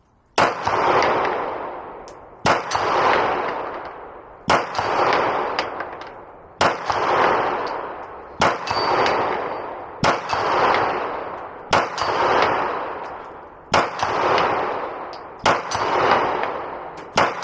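Glock 34 Gen 5 9mm pistol fired ten times at a slow, steady pace of about one shot every two seconds. Each shot trails off in a long echo, and the faint ring of hits on a steel plate downrange can be heard.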